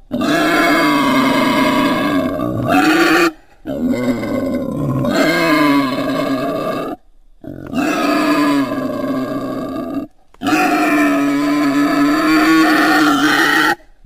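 Wild boar vocalisations: four long, pitched calls of about three seconds each, separated by brief silences.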